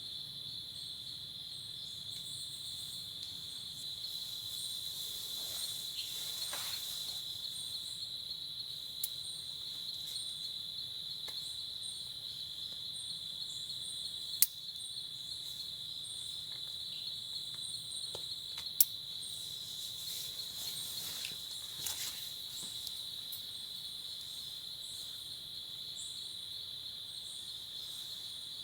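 A steady, unbroken high-pitched chorus of crickets and other night insects, with a fainter pulsing insect call above it. A few sharp ticks break in, two of them loud, around the middle.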